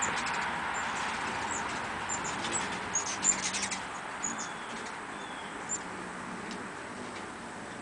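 Hummingbirds chipping around a nectar feeder: short, very high chip calls scattered irregularly, thickest in the first half, with a quick cluster of sharp clicks about three seconds in.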